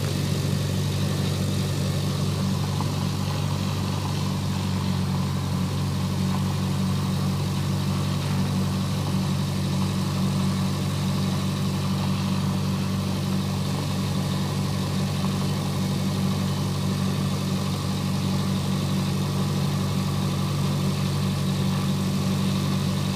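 Cessna Skyhawk's piston engine running steadily at low power on the ground, with an even drone.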